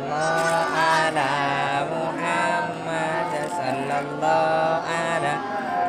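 Voices chanting dzikir, a slow melodic Islamic devotional chant with long held notes.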